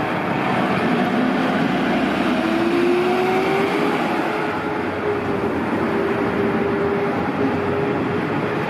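Siren of a tiller aerial ladder fire truck responding code 3. Its pitch climbs over the first three or four seconds and then holds steady, over the noise of the truck's engine as it passes.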